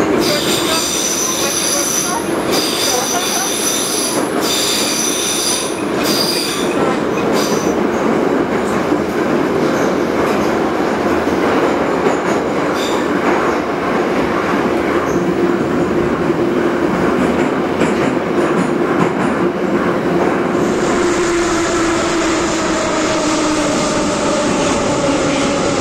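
Moscow Metro train heard from inside the moving car: a steady rumble of wheels on rail, with high wheel squeal coming and going over the first several seconds. Near the end a whine falls in pitch as the train slows.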